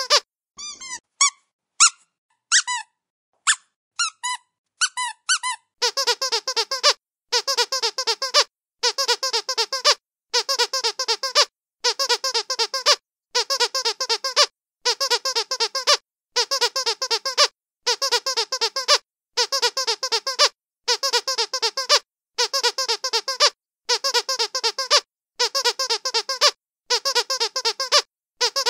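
Squeaky dog toy being squeezed. For about the first five seconds it gives scattered single squeaks, some sliding down in pitch. After that it goes into short bursts of rapid squeaks, one burst about every second and a half.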